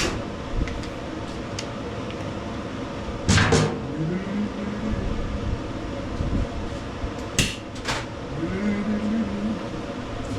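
Sharp metal clanks and knocks of hand tools and engine parts during disassembly, with two short whirs of a small motor that rise in pitch and then hold steady, about a second each.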